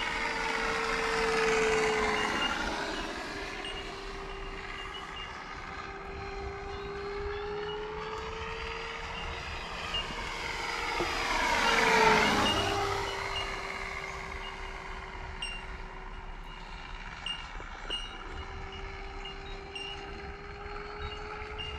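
Electric FMS F4U Corsair RC model fitted with an engine sound system, flying past overhead. Its steady motor-and-propeller tone swells as it passes about a second in, then swells louder about twelve seconds in and drops slightly in pitch as it goes by.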